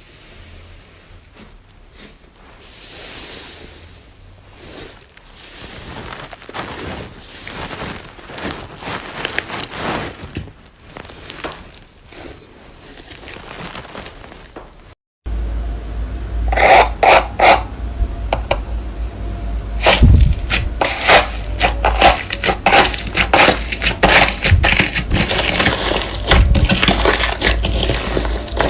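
Slime being squeezed and worked by hand, with many quick crackles and pops. The sound cuts out briefly about halfway through, then comes back much louder.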